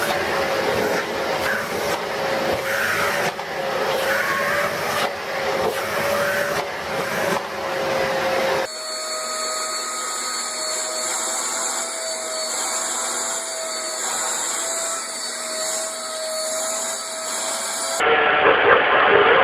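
Vacuum cleaners running with a steady motor whine and airflow rush. About 9 s in, the sound cuts abruptly to a second vacuum with a slightly higher, gently wavering whine. Near the end it changes abruptly again.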